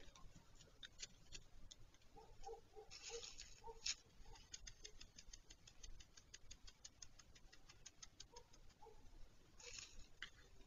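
Faint, rapid, even clicking, about six ticks a second for some four seconds, with short scratching rustles before and after it and a few soft pips. Its source under the nest is unidentified.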